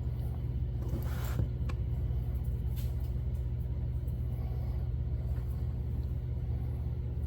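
Ford 302 V8 idling steadily, a low even rumble, while its carburetor floods with fuel.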